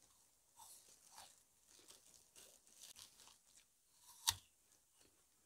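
Faint crunching of a crisp apple being bitten and chewed, with one sharp click about four seconds in.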